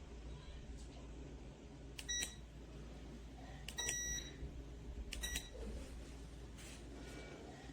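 Three short electronic appliance beeps, each starting with a click, the second one longest, over a low steady hum.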